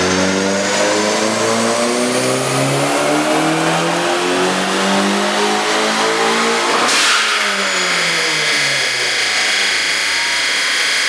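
A Ford Escort's four-cylinder engine pulling at full throttle on a chassis dyno, its pitch climbing for about seven seconds. A short rushing hiss comes as the throttle closes, then the engine note falls away as it winds down.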